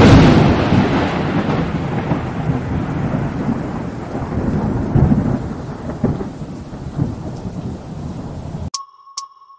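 Thunderclap with rain: a sudden loud crack, then a long rumble with a few swells that slowly fades, cutting off abruptly near the end. Used as a sound effect under a warning title card.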